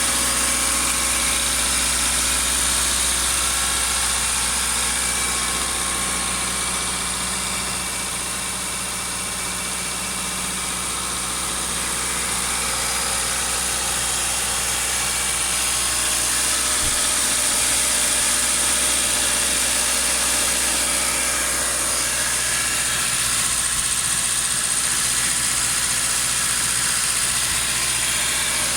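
Subaru FB20 2.0-litre flat-four engine idling steadily, still warming up after a cold start.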